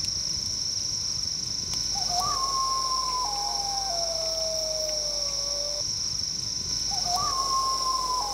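Two long wailing animal calls, each starting with a short rise and then sliding slowly down in pitch in small steps over about three seconds, over a steady high-pitched insect chorus.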